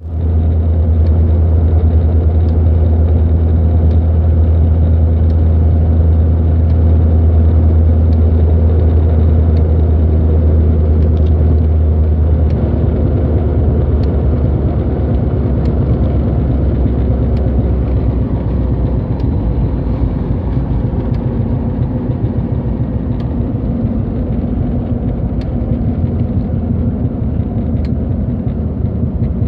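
Jeep Cherokee XJ running with a steady low drone, and a faint, sharp tick about every one and a half seconds that comes from the speedometer. The deepest part of the drone drops about twelve seconds in.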